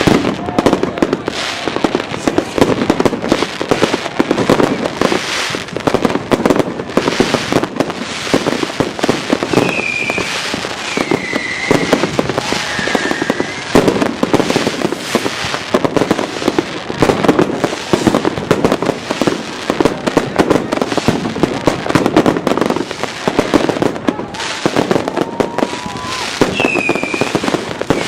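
A dense, unbroken barrage of firework bangs and firecracker crackling from many fireworks going off at once, with a few short whistles cutting through partway in and again near the end.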